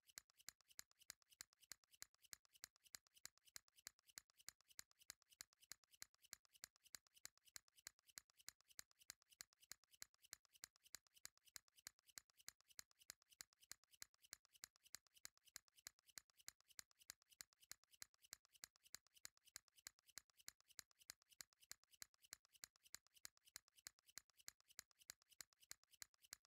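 Faint ticking sound effect: even, sharp clicks at about four a second.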